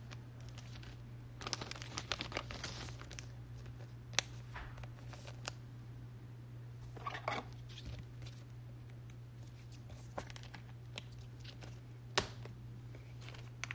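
Trading cards and their packaging being handled out of sight: scattered crinkles and sharp clicks, the sharpest about four seconds in and near the end, over a steady low electrical hum.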